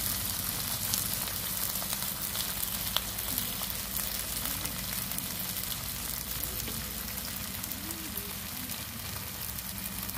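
Battered small-shrimp pancake sizzling in hot oil in a non-stick frying pan: a steady crackling hiss, with one sharp pop about three seconds in.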